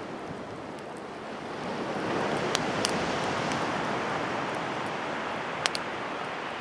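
Wood campfire burning: a steady rushing hiss of flame with a few sharp crackling pops, the loudest near the end.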